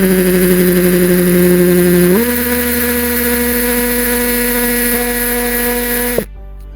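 Electric drill running while drilling holes for a camera bracket: it runs at one steady speed, steps up to a higher speed about two seconds in, then stops abruptly about six seconds in.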